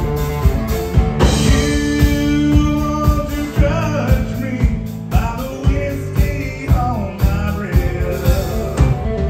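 Live band playing a country-rock song: a male lead voice comes in about a second in, singing over acoustic and electric guitars and a steady drum beat.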